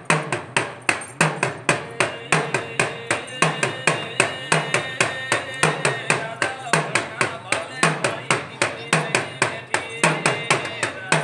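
Dakla drum of a Gujarati ramel, beaten with a stick in a fast, even rhythm of about four to five sharp strokes a second, with a deeper stroke roughly once a second.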